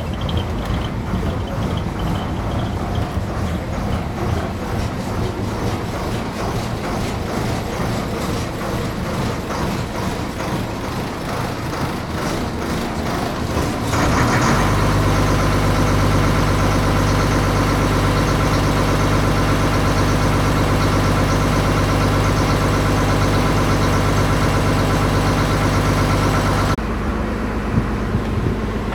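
Houseboat engine running steadily. Its hum grows suddenly louder about halfway through, as a steady drone with several fixed tones, and drops back abruptly near the end.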